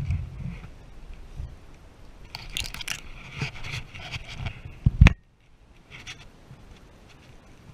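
Handling noise as a hooked pike is lifted from the water and held: irregular scraping and knocking, with a loud sharp thump about five seconds in.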